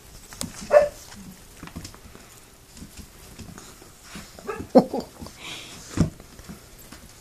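Puppies playing and chewing at shoelaces, giving short yips and little barks, one about a second in and a cluster around five seconds, with scuffling between and a sharp thump near six seconds.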